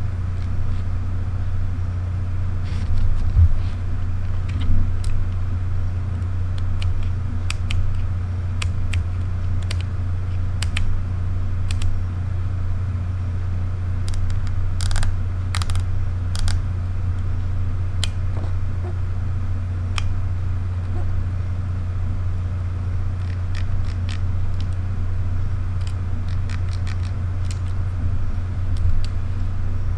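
Sony RX1R II and Fujifilm X-E4 camera controls being worked by hand: sharp, separate clicks of dials and buttons scattered throughout, a few stronger ones together about halfway through. Under them is a steady low hum.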